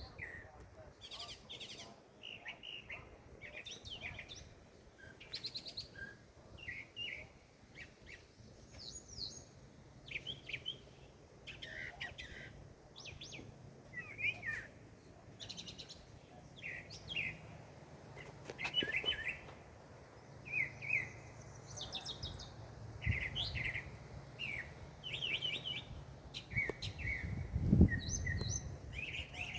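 Several birds chirping and calling in short, quickly repeated high notes, one after another. A brief low thump sounds near the end.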